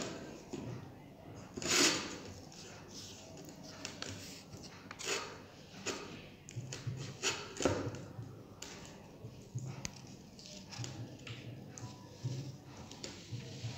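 Hands pressing, rubbing and smoothing a lump of clay on a board: irregular soft scrapes and dabs, the loudest about two seconds in.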